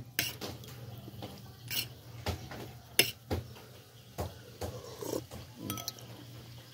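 Metal spoon clinking and scraping against a soup bowl and a plate in short, irregular knocks, with the mouth sounds of a man eating soup and noodles.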